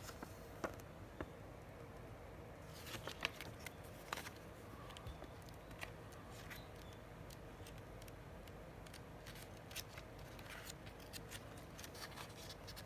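Faint, scattered rustles and light clicks of paper being handled: booklet pages and a receipt being turned and moved.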